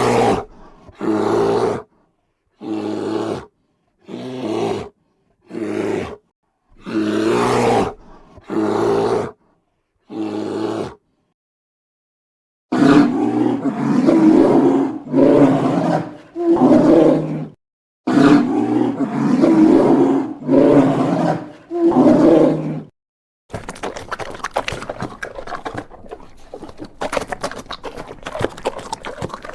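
Bear roaring and growling: a string of short roars about a second each, separated by silent gaps, then a denser run of repeated roars. A few seconds before the end the roaring gives way to a quieter crackling noise.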